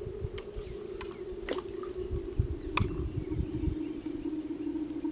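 A steady low hum under an uneven low rumble, with a few sharp clicks, the loudest about one and a half and three seconds in.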